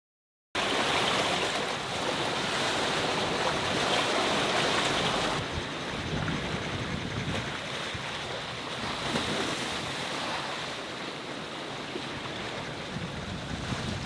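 Wind rushing over the microphone together with the sea washing past a sailing yacht at sea. It cuts in suddenly after a moment of silence, and eases off a little about five seconds in.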